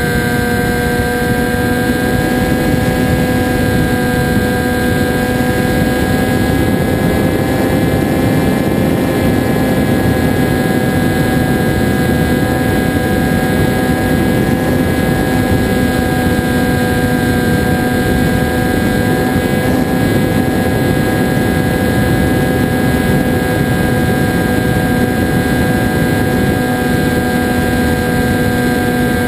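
RC flying wing's motor and propeller heard from the onboard camera, running at a steady throttle with a nearly constant droning pitch, over the rush of air past the airframe.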